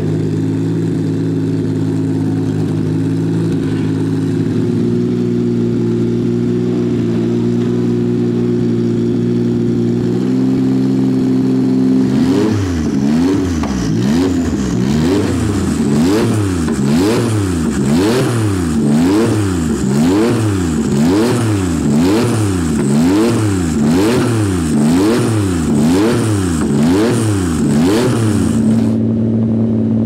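Race car engine idling steadily, then revved up and down in quick repeated blips, about one a second, before settling back to idle near the end.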